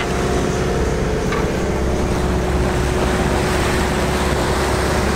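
A boat's engine running steadily under way at constant speed, a low drone with a steady hum, over the rush of water and wind.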